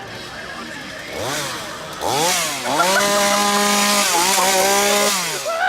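Chainsaw engine revved: short blips about a second and two seconds in, then held at full revs for a couple of seconds before dropping away near the end.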